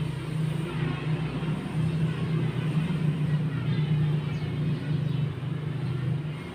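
Low, steady engine rumble with a slight pulsing, which grows a little louder after the first second.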